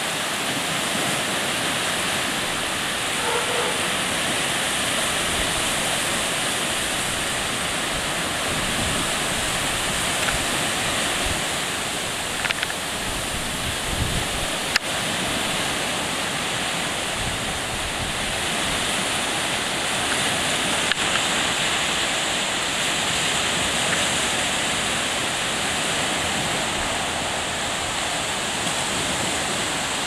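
Rough, wind-driven lake waves churning and breaking in a steady rushing wash, with wind blowing over it. A few low thumps of wind on the microphone come about halfway through.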